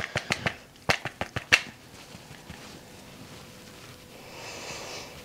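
Powder puff patting: a quick run of soft taps in the first second and a half, then quiet with a faint rustle near the end.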